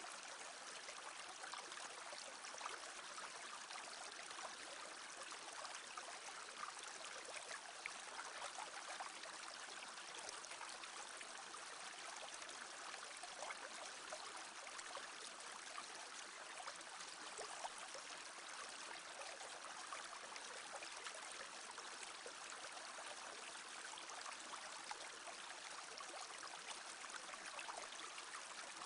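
Shallow brook babbling steadily: a continuous trickle and splash of flowing water over stones, with fine splashing ticks throughout.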